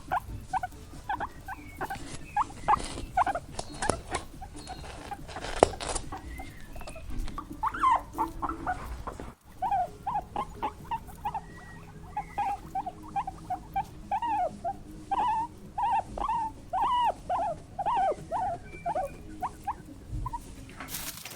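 A small animal squeaking in quick runs of short, high chirps, with a brief break a little after halfway.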